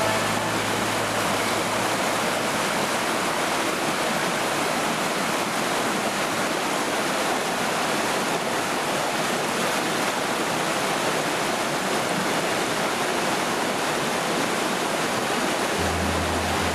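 Swollen mountain river rushing over rocks: a steady, even roar of fast-flowing water. Low steady tones sound under it in the first couple of seconds and again near the end.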